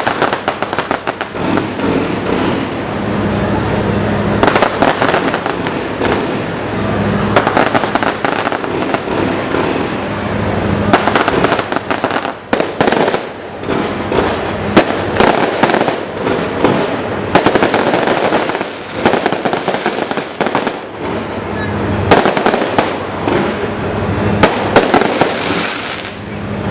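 Aerial fireworks display: a constant run of bangs and crackling, with denser bouts of rapid crackle every few seconds.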